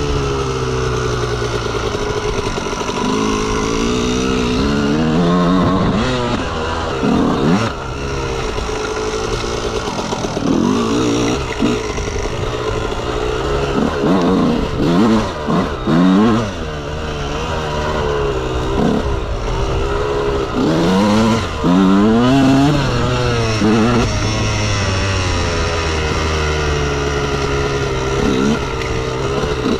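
Honda CR125R's 125 cc single-cylinder two-stroke engine revving up and down over and over, its pitch climbing and then dropping. It settles into a steadier low note near the start and again later on.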